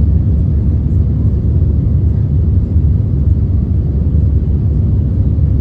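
Steady low rumble inside the cabin of an Airbus A320-214 as it departs: engine noise from its CFM56 turbofans and airflow, with no sudden events.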